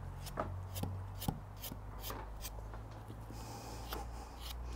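A sharp knife scoring the skin of a pork belly: a quick series of short, crisp cutting strokes, about two or three a second, over a low steady hum.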